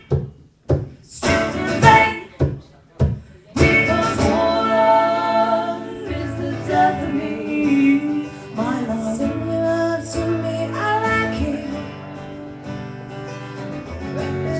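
Live music with female singing over guitar: a few sharp chord stabs separated by short silences, then from about three and a half seconds in a steady flow of guitar playing and sung melody.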